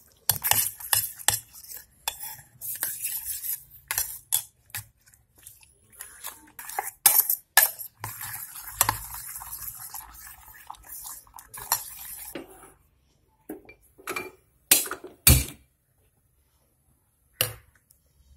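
Metal spoon stirring a runny egg and onion mixture in a stainless steel bowl, with rapid clinks and scrapes against the bowl's side. The stirring stops about twelve seconds in, followed by a few separate sharp knocks.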